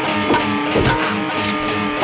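Background music led by guitar, with sustained tones over a steady pulse and several bent notes.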